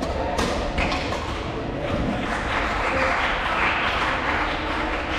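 Two sharp badminton racket hits within the first second, then applause in the hall for about three seconds.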